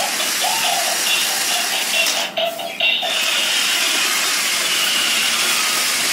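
Small electric motors and gearboxes of an RC stunt car whining steadily as its roller wheels run over floor tiles, with a brief drop about two and a half seconds in.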